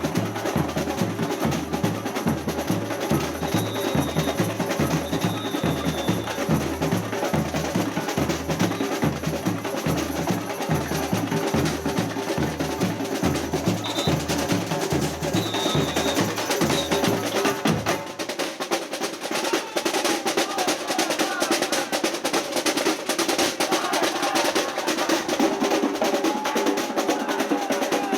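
Samba percussion band (bateria) playing a steady driving rhythm: deep bass drums under snares and higher drums, with a few short whistle blasts in the first half. About two-thirds of the way through, the bass drums drop out and the snares and higher drums carry on.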